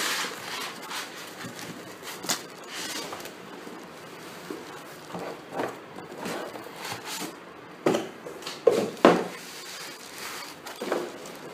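Cardboard box and black foam packing being handled as a laptop is slid out: scraping and rustling of cardboard, foam and plastic wrap, with a few louder handling noises about eight to nine seconds in and another near the end.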